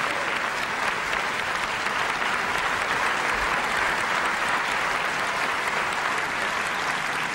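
Large theatre audience applauding steadily: a continuous wash of many hands clapping.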